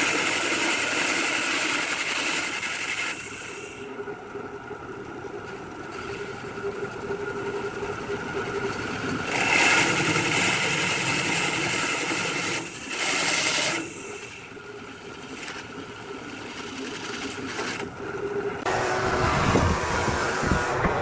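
Woodworking machine running steadily, with louder bursts of cutting noise about ten and thirteen seconds in, and a change in the sound near the end.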